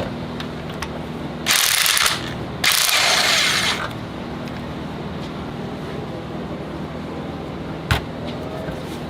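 Two short bursts of hissing from a compressed-air tool, the second about a second long, over a steady low hum; a single sharp click near the end.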